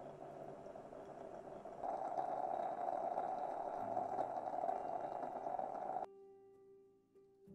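Stovetop moka pot with a glass upper chamber brewing on the heat: a steady hiss and gurgle as the coffee is pushed up into the top chamber, growing louder about two seconds in and cutting off suddenly about six seconds in.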